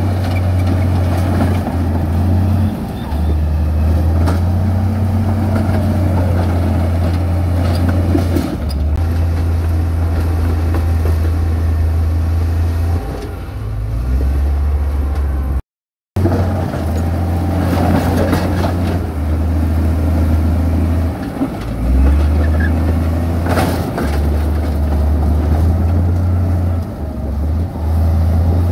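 Heavy diesel construction machinery running: a loud low engine rumble that steps up and down in pitch as the machine works, with a brief total dropout about halfway through.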